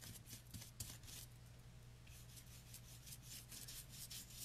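Faint scratchy rubbing of a nearly dry paintbrush dragged back and forth across a painted cutout while dry brushing: a steady run of short strokes, several a second.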